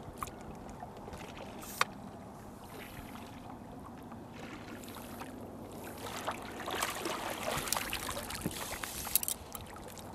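Water splashing and dripping as a hooked walleye is scooped up in a landing net and lifted out, from about six seconds in for about three seconds. Before that, a low steady background with one sharp click just before two seconds in.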